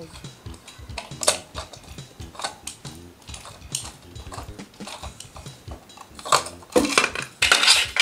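Screwdriver clicking and scraping at a screw in a plastic modular wall plate, with small scattered clicks. Near the end a louder run of plastic clicks and rattles as the cover plate is pried off the wall box.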